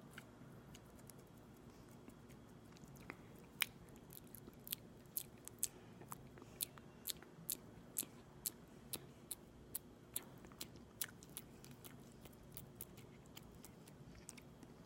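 Close-miked chewing of aloe vera: faint, wet, sticky mouth clicks coming at about two a second, starting a few seconds in and thinning out toward the end.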